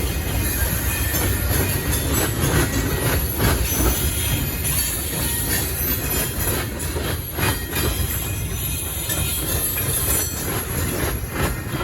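Freight train cars rolling past, wheels clicking over rail joints with a steady high-pitched wheel squeal over a constant rumble.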